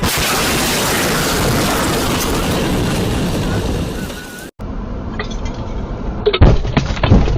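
A loud, steady rushing noise, then an abrupt cut to a dashcam recording in which heavy thumps of a vehicle crash hit about 6.5 and 7 seconds in.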